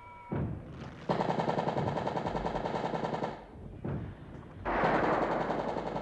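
Machine-gun fire in two long, rapid bursts: the first starts about a second in and lasts about two seconds, and the second starts near the end and runs on.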